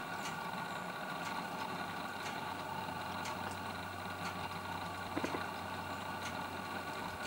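A steady mechanical hum made of several held tones, like running machinery or an idling engine, with faint ticks every half second to a second and a brief louder knock about five seconds in.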